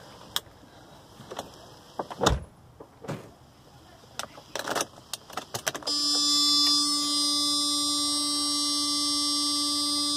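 Scattered clicks and knocks of handling inside a Mercedes W140 300SD, then about six seconds in a steady electronic warning buzzer comes on and holds unchanged. It sounds with the ignition switched on and the dash warning lamps lit, before the diesel is cranked.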